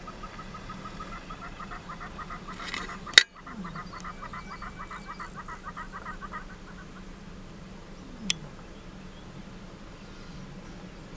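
Bird calls chattering in a fast run of short notes, fading out about two-thirds of the way through. A sharp, loud click comes a little over three seconds in, and a fainter click near eight seconds.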